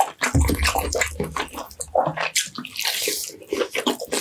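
Close-miked eating: wet chewing, lip-smacking and the tearing of roast lamb and chicken meat pulled apart by hand, as many short sticky clicks. A low rumble runs for about a second and a half from about half a second in.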